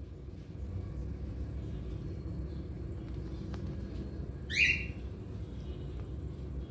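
A pet parakeet gives one short, loud screech about four and a half seconds in, sweeping down in pitch. A steady low rumble runs underneath.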